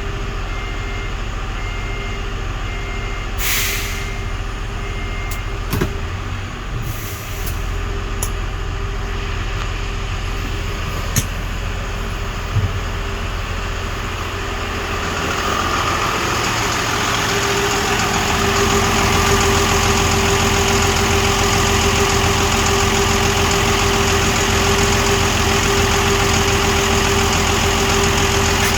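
Hyundai Mega Truck diesel engine idling steadily, with a brief hiss and a few light knocks in the first half. About halfway through, a louder steady whir builds and holds: the Allison transmission oil cooling fan running, working again after its relay was replaced.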